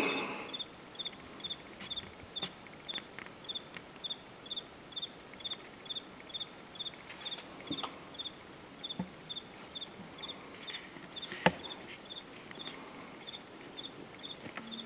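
An insect chirping steadily, a short even chirp about two to three times a second, with a few faint clicks and one sharper click late on.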